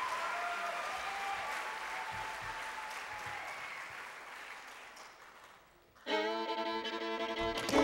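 Audience applause fading away. About six seconds in a fiddle strikes up suddenly with a sustained chord, and low notes join just before the end.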